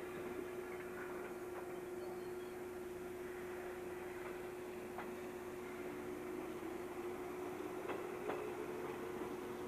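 A steady hum with a few scattered clicks. From about six seconds in, an electric train's motor whine rises in pitch and grows a little louder toward the end.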